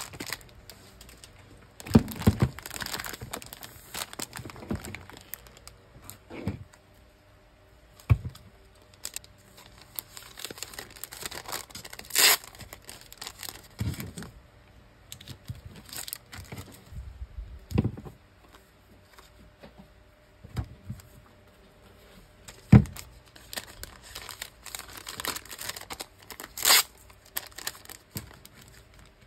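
Clear cellophane (OPP) packing bags crinkling in the hands as they are opened and handled, with stretches of peeling, tearing-like rustle from the adhesive strips. A few sharp snaps and taps stand out, the loudest about two seconds in and again past the twenty-second mark.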